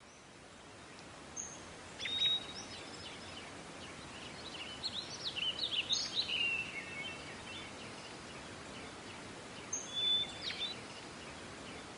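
Wild songbirds calling over steady outdoor background noise: short high chirps and held whistles, with a longer warbling phrase about five to seven seconds in. The sound fades in at the start.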